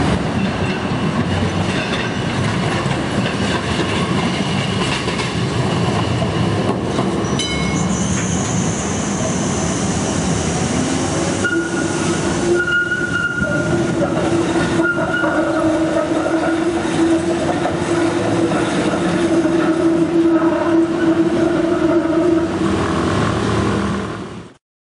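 Z1-class Melbourne tram running on street track: steady rolling and rail noise, a brief high squeal about a third of the way in, and a steady hum through most of the second half as it moves off.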